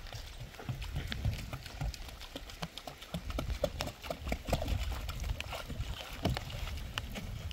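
Water glugging out of a plastic jerrycan as it is poured onto a pile of sand and cement, in a run of irregular gurgling knocks over a low rumble.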